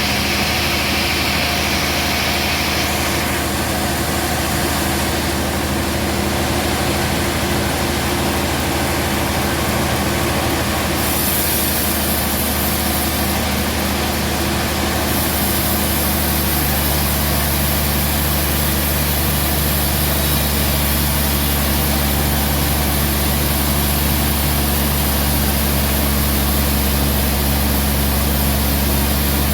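Sawmill machinery running steadily with a deep, even engine hum. A hiss drops out about three seconds in, and the low hum grows stronger about halfway through.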